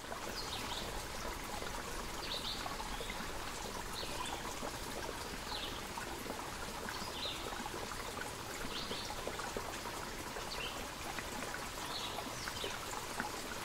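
Steady rush of flowing water, like a stream, with a short high chirp repeating about every second and a half.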